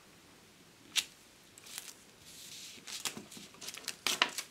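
Masking tape being handled over a metal plate, faint: a sharp click about a second in, a brief rasp of tape pulling off the roll, then small taps and rustles as it is pressed down.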